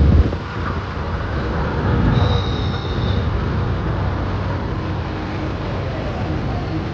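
Busy street ambience: a steady low rumble of crowd and motorbike traffic, with a short high-pitched tone lasting about a second, some two seconds in.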